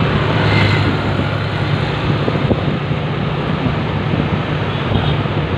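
Steady low engine hum with wind and road noise while moving along a road.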